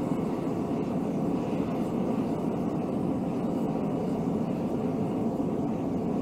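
Propane burner of a Mr. Volcano gas forge running steadily with the forge at full heat, around 2500 °F: an even, unbroken rush of flame noise.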